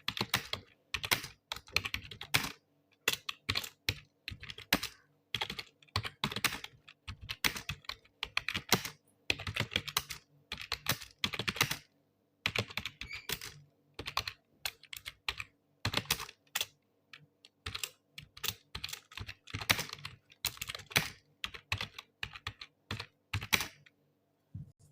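Computer keyboard being typed on in fast, irregular bursts of keystrokes with brief pauses between words, stopping about a second before the end.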